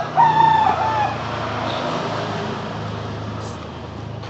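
A rooster crows once, a wavering call lasting about a second near the start, over a steady low engine hum that continues after it.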